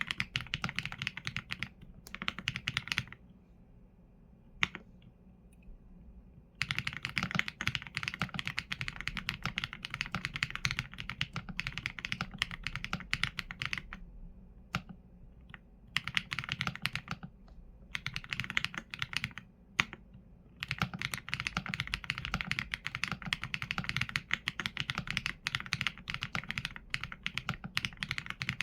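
Typing on a Qsenn A75 mechanical keyboard with Leobog Graywood V4 linear switches and PBT keycaps: fast runs of keystrokes broken by short pauses, with a few single key presses in the gaps.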